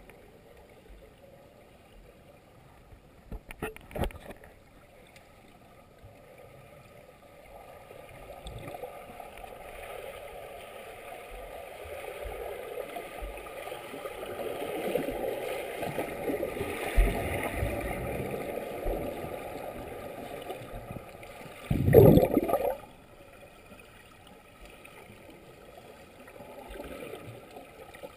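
Muffled underwater churning of a swimmer's strokes and kicks, swelling as the swimmer passes close to the camera and then fading. A short knock comes about four seconds in, and a louder, brief burst of splashing about 22 seconds in.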